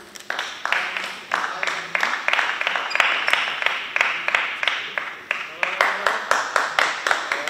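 Rhythmic clapping, about three claps a second, with voices under it.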